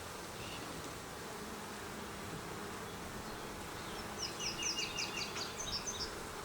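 Honey bees buzzing around an opened hive: a steady, dense hum. About four seconds in, a quick run of high chirps sounds over it for about two seconds.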